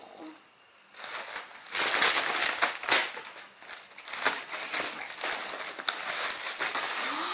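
Plastic mailer bags and gift wrapping crinkling and rustling as packages are opened by hand, starting about a second in, with many sharp crackles.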